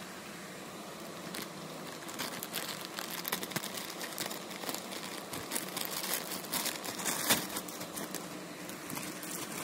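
A plastic courier bag crinkling as it is cut open with scissors and the bubble-wrap packing inside is handled, giving irregular crackles and rustles. The loudest crackle comes about seven seconds in.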